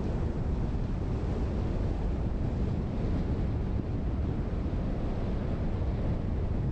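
Steady road and wind noise from a car driving, a low rumble with a hiss above it that holds even throughout.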